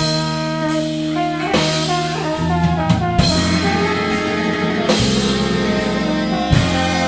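Live klezmer-punk band playing: drum kit, bass and guitar under saxophone and brass lines, with a note sliding down in pitch about three seconds in.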